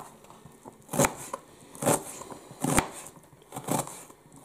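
Kitchen knife chopping an onion on a cutting board: four sharp knocks of the blade on the board, about one a second, with softer cuts between.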